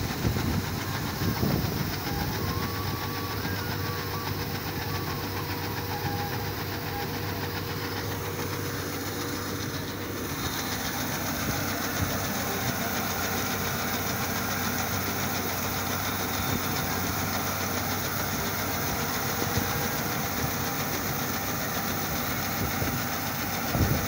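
Combine harvester running steadily while unloading wheat grain through its auger, a low engine hum under a hiss that grows a little brighter about ten seconds in.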